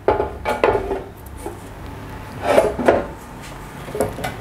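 Heavy steel wide-flange beam being handled into a chop saw's vise: a series of metal clanks and knocks with short ringing. The loudest knocks come at the start and about two and a half to three seconds in.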